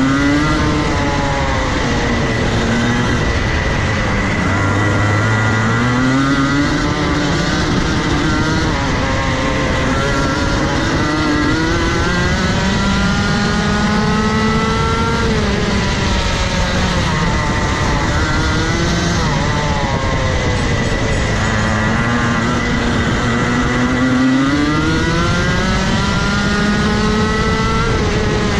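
Rotax Max Evo 125cc single-cylinder two-stroke kart engine at racing speed. Its pitch climbs on each straight and drops back as the kart slows for corners, several times over.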